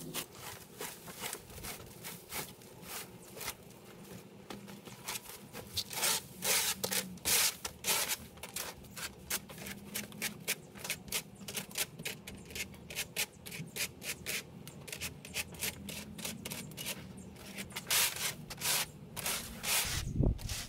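Rapid, irregular scraping and rustling strokes from hand work on the yard, several a second and louder in spurts, with a low thud near the end; no power tool is running.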